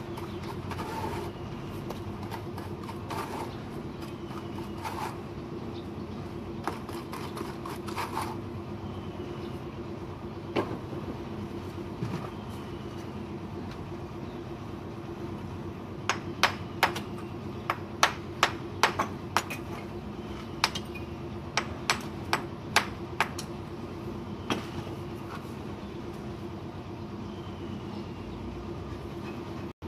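A bricklayer's steel trowel tapping on red bricks: a run of about a dozen sharp, ringing taps a little past the middle, with softer knocks earlier. A steady low machine hum runs underneath.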